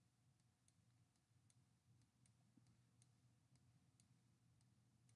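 Faint clicks of a computer mouse, about two or three a second and unevenly spaced, over a faint low steady hum.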